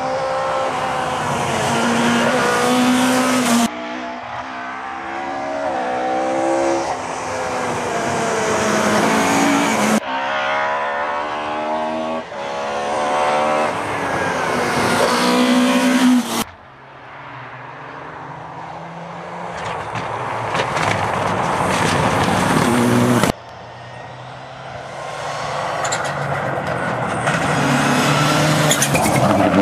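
Rally cars at full speed on a stage, engines revving hard and rising in pitch through the gears, then dropping as they lift or shift. Five passes in a row, each one cutting off suddenly into the next.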